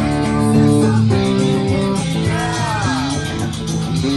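Guitar-led band music with bass guitar and drums playing together.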